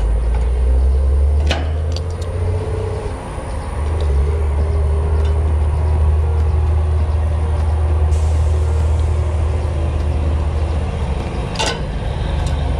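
Long needle-nose pliers pulling the wire connectors off an AC condenser's dual run capacitor and freeing it from its bracket. There is a sharp click about a second and a half in and another near the end, over a steady low rumble.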